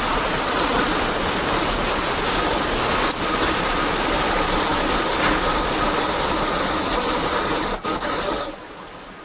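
Loud, even rushing noise with a faint steady high tone in it, coming through the call from a participant's unmuted microphone. It cuts off suddenly near the end.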